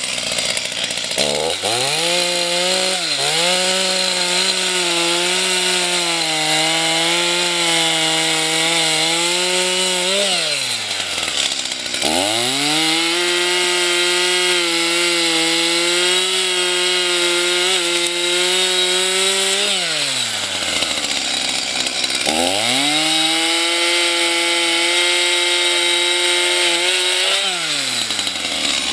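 Two-stroke gas chainsaw cutting through a driftwood log: it revs up to full throttle three times and holds a steady high pitch through each cut, dropping back to idle between cuts.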